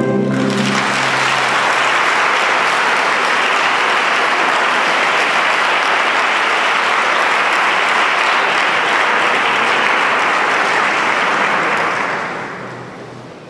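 Audience applauding steadily, dying away near the end. The last of a held choir-and-band chord cuts off right at the start.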